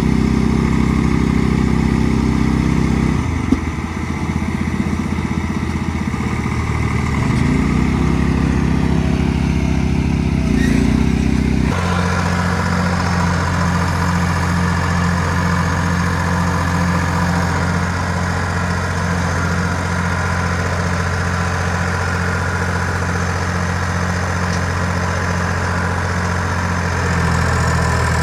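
Tractor engine running steadily. Its note wavers about three seconds in and changes abruptly to a different steady pitch about twelve seconds in.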